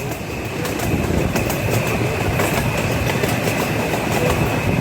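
Park excursion train rolling along the track, its wheels clacking over the rail joints with a steady rumble and a thin, steady high whine beneath.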